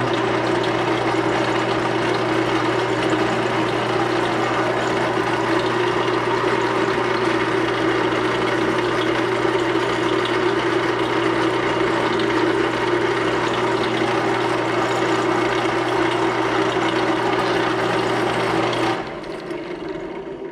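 Drill press running steadily as it drills a pilot hole through the compact bender's handle. Near the end it is switched off and the motor winds down.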